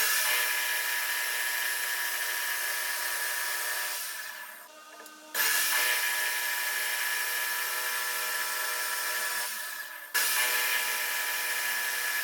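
A shop power tool running steadily on metal work, with a whine of several steady tones over a hiss. It is heard in three stretches: twice the sound fades down, then cuts back in abruptly.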